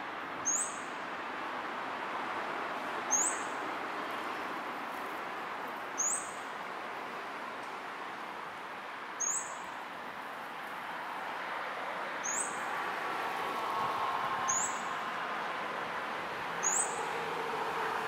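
Male scarlet-backed flowerpecker giving sharp, very high-pitched single call notes, seven in all, spaced two to three seconds apart, over steady background noise.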